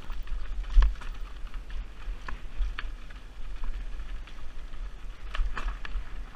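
Mountain bike clattering down a rocky trail: tyres crunching over loose stones with frequent sharp knocks and rattles from the bike, over a steady low rumble. One heavier knock comes about a second in.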